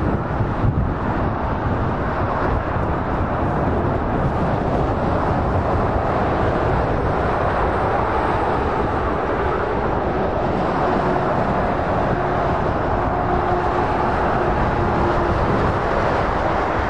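Steady motorway traffic noise: tyres and engines of lorries and cars passing at speed. A faint steady hum rises out of it in the second half.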